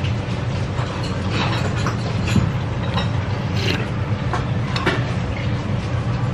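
Several short slurps and sips as ramen noodles and soup from a ceramic spoon are eaten, over a steady low hum.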